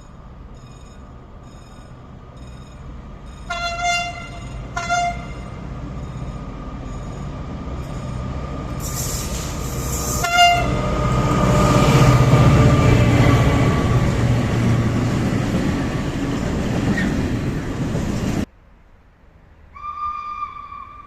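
A passing train sounds two short horn blasts about four seconds apart, then a third about ten seconds in: a driver's greeting to the person trackside. The train's running noise builds to its loudest around twelve seconds and cuts off abruptly near the end, where another steady horn tone begins.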